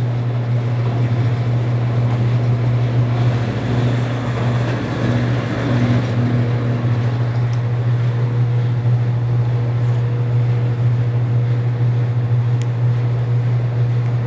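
Bluedog BWS-80 HD electric wire stripping machine running with a steady low hum. From about three to seven seconds in, a rougher, louder noise rises over it as a cable is fed through the blades that slit the insulation.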